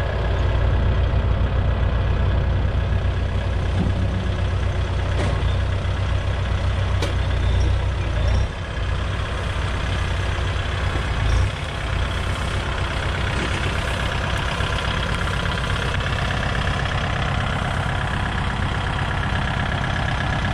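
Kubota tractor diesel engine running steadily at idle. Its deep rumble dips briefly twice near the middle, then carries on a little lighter.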